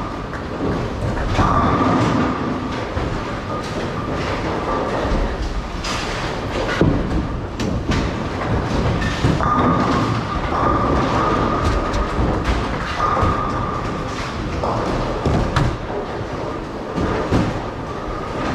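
Bowling alley din: bowling balls rolling down the lanes in a continuous low rumble, with pins crashing and knocking several times. A steady high hum comes and goes for a few seconds at a time.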